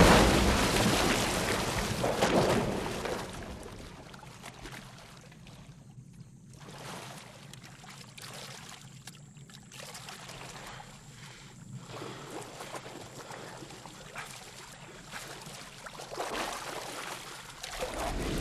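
A big splash of a body plunging into water as the rumble of an explosion dies away. Then quieter water sloshing and trickling, with splashing swelling again near the end as someone hauls himself out onto the bank.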